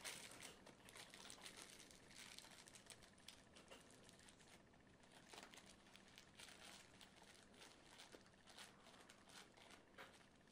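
Faint crinkling and rustling of a plastic sandwich bag being handled as a wire twist tie is wrapped around its end, with many small scattered ticks.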